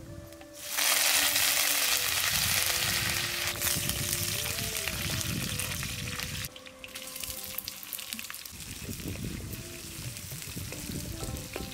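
Food frying in hot oil in a pan. A loud sizzle starts suddenly about a second in, then drops to a quieter, steady sizzle a little past halfway.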